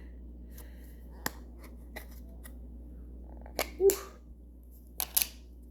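Sharp plastic clicks and pops of dough tubs and their caps being handled and opened: a light click about a second in, then two louder pairs near four and five seconds, one with a short squeak.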